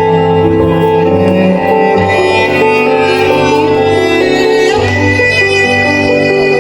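Cello playing a melody of long, sustained bowed notes over a steady low bass.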